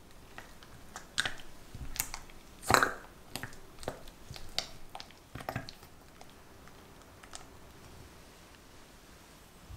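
Silicone spatula stirring softened cream cheese and butter in a glass bowl: irregular sticky squelches and scrapes against the glass, dying down after about six seconds.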